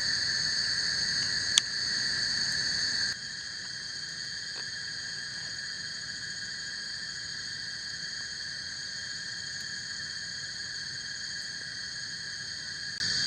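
Steady insect chorus: several high-pitched tones held without a break. There is one sharp click about a second and a half in, and the whole chorus drops suddenly quieter about three seconds in.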